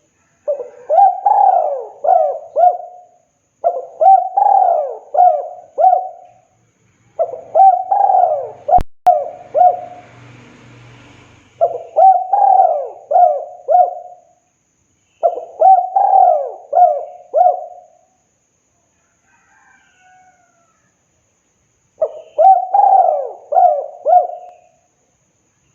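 Spotted dove (tekukur) cooing its song: six phrases of several quick rolling coos, each phrase about two to three seconds, with pauses of one to four seconds between. A single sharp click about nine seconds in, followed by a brief faint hum.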